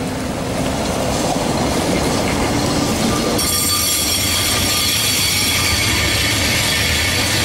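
A Lisbon Remodelado tram running past close by on curved track. About three and a half seconds in, its wheels start squealing against the rails: several high, steady tones over the running noise.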